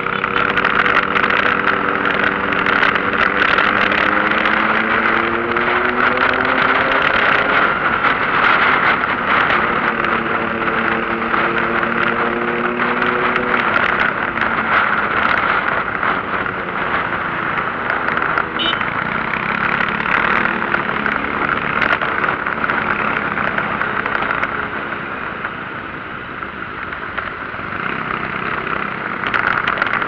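Motorcycle engine running while riding through traffic, its pitch climbing and settling with speed, over a steady rush of wind and road noise.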